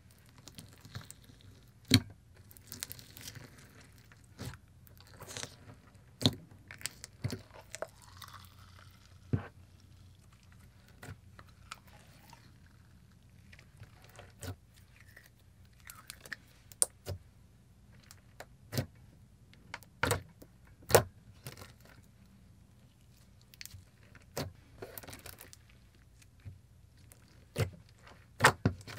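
Hands kneading, pressing and stretching a thick glossy slime, giving irregular sharp pops and clicks with softer squishing between them.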